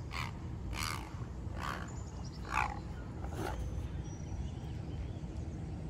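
A bird giving five harsh, scratchy calls, one every second or so, over a low steady rumble of wind and water; fainter high chirps from small birds follow near the end.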